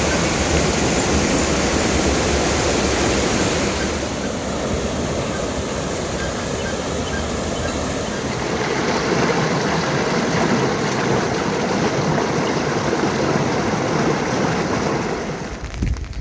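Flowing water rushing steadily, as from a stream or a pouring spout.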